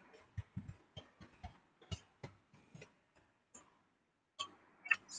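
About a dozen light, sharp clicks and taps at uneven intervals, faint, with near silence between them, typical of small hand movements on a device or desk.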